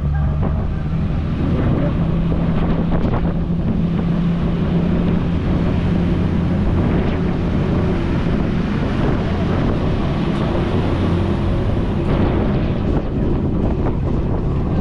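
Cruise boat under way, its engines giving a steady low hum beneath the rush of the churning wake, with wind buffeting the microphone on the open deck.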